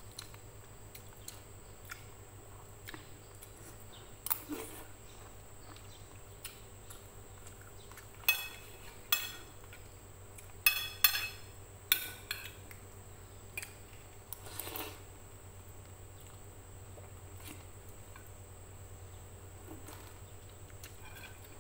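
Metal spoon and fork clinking and scraping against a ceramic plate in scattered sharp clicks, most of them bunched together in the middle.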